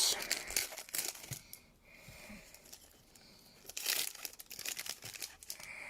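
Plastic wrapping on hockey card packaging crinkling and tearing as it is pulled open by hand. The crinkling comes in bursts, with a quieter lull in the middle.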